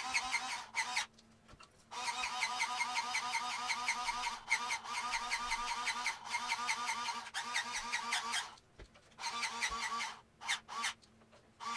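A grease gun pumping grease into the excavator's fittings in several runs of a second to nearly three seconds. Each run is a rapid, even rattle with a whine, and there are a few shorter spurts near the end.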